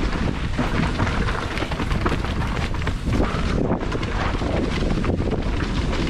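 Wind buffeting the microphone of a downhill mountain biker's POV camera at speed, over a dense clatter of the bike rattling across rough trail.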